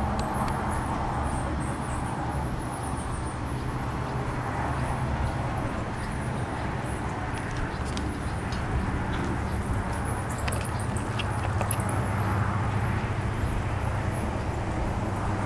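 Steady outdoor background noise with a low hum, and faint, short high-pitched chirps scattered throughout.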